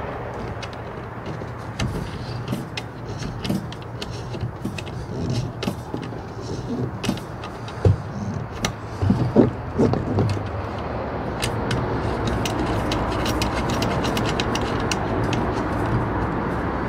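Scattered clicks and knocks of hands fitting a coax cable connector onto the back of a CB radio, over a steady rushing background noise that grows louder about two-thirds of the way in.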